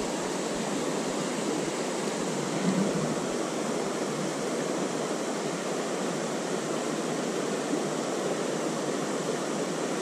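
Steady rush of a shallow river running over rocks in a riffle.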